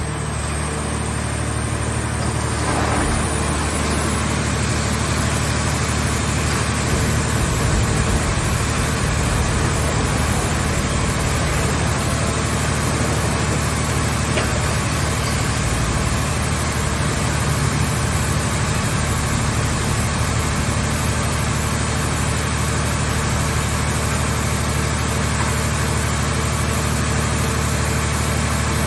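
Hydraulic automobile baler running: a steady low drone with an even wash of mechanical noise, with no distinct bangs or strokes.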